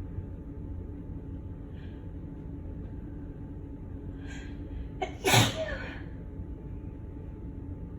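A woman sneezes once, loudly, about five seconds in, after a few short sharp inhalations: an allergic sneeze brought on by cigarette smoke.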